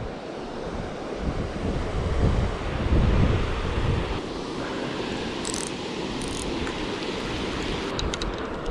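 Water pouring over a concrete spillway, a steady rush, with wind buffeting the microphone in low gusts a couple of seconds in.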